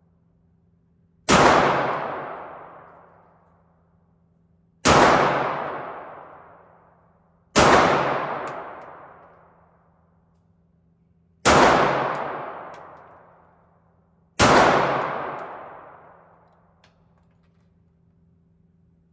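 Five single gunshots spaced about three to four seconds apart, each trailing off in a long echo of a couple of seconds.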